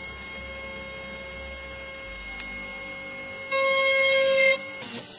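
Small electric jeweller's drill running with a steady high whine while drilling pilot holes in a silver disc; the whine grows stronger about three and a half seconds in and falls back a second later.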